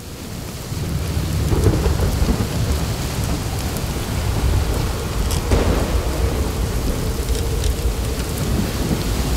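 A stormy water soundscape: a continuous deep rumble under an even, rain-like hiss, swelling up during the first second.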